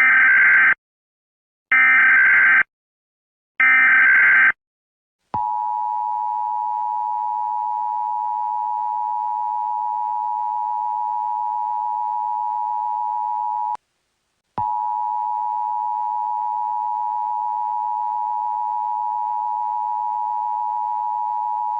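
Emergency Alert System tones: three short bursts of shrill, warbling SAME header data, each under a second, then the steady two-tone attention signal, which breaks off briefly about fourteen seconds in and then resumes.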